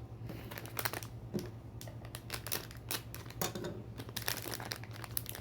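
Plastic wrapping crinkling and crackling in irregular bursts as it is handled and pulled open by hand.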